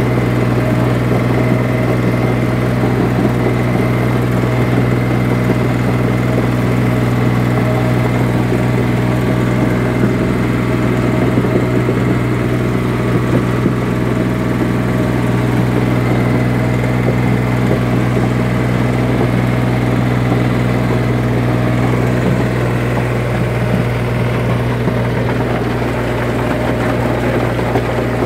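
Yanmar US300D tractor's diesel engine running steadily under load as it pulls a rotary tiller through dry field soil.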